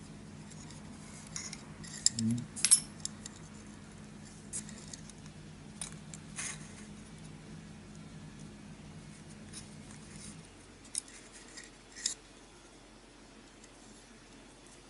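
Small metallic clicks and tinkles of fine wire, a little chain and brass fittings being handled by hand, scattered and irregular, the sharpest a couple of seconds in. A low steady hum underneath stops about ten seconds in.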